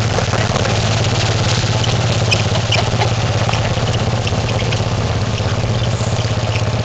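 Quad ATV engine running steadily at low speed, a constant low hum. Short faint high squeaks come through over it now and then.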